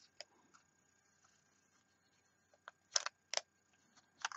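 A few sharp clicks and taps from handling a wooden-bodied mech squonker mod: faint ones at first, then two louder clicks about three seconds in, half a second apart, and another near the end.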